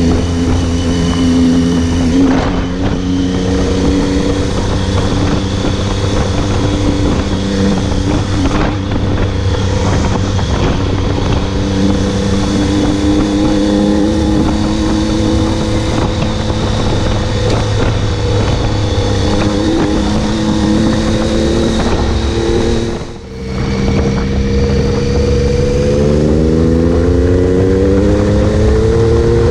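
Triumph Tiger 800's three-cylinder engine running under way on a dirt road, with wind and road noise. About 23 seconds in the engine sound drops briefly, then it comes back and rises in pitch as the bike accelerates near the end.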